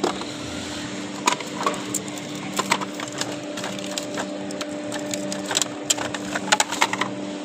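Plastic jars and spools of fishing line clattering and knocking as a hand rummages through a pile of them, in quick irregular clicks, with a steady low hum underneath.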